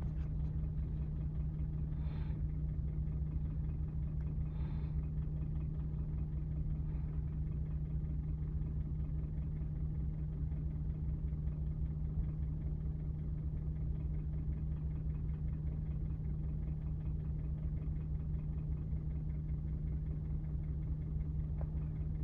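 Steady low hum and rumble of a motor vehicle's engine running without change, with a few faint brief higher-pitched sounds about 2, 5 and 7 seconds in.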